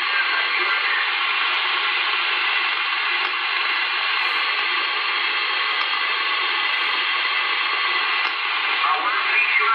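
Radio receiver's static: a steady hiss of band noise from the speaker, cut off above and below like radio audio, while no station is transmitting. Near the end a faint wavering signal starts to come through the noise.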